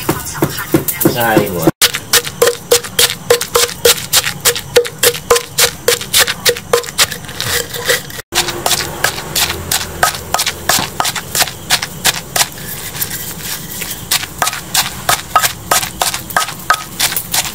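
Wooden pestle pounding in an earthenware mortar in steady strokes, about two to three a second, crushing garlic and then a wet chilli-and-herb paste for jaew dipping sauce. The pounding breaks off briefly twice.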